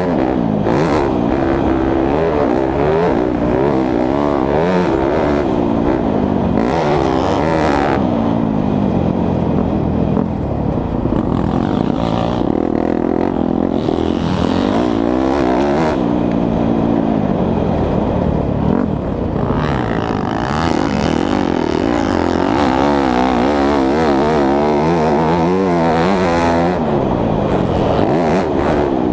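2017 Yamaha YZ250F's four-stroke single-cylinder engine heard from on board while it is ridden hard, its pitch rising and falling over and over as the throttle is opened and closed through the gears.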